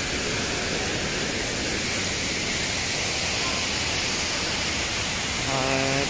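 Waterfalls pouring into a rock-edged plunge pool: a steady, even rush of falling water.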